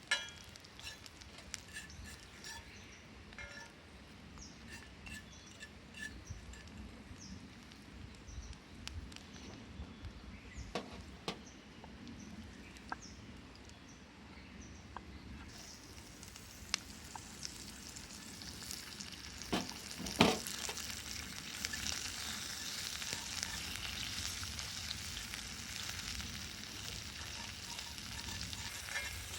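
Food frying in a pan. The sizzle is faint at first and swells louder from about halfway through, with scattered clinks and a few sharp utensil knocks against the pan.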